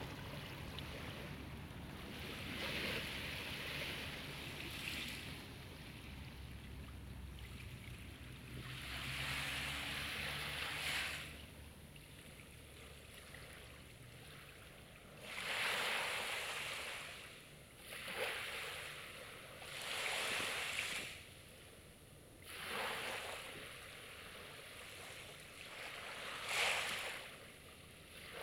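Small sea waves washing onto the shore, each wash swelling and fading every few seconds. A low steady hum underlies the first several seconds, then fades out.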